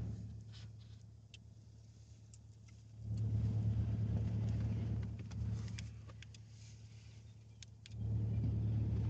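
Low hum of a car's engine heard inside the cabin. It drops away about a second in and swells back up twice, at about three seconds and near the end.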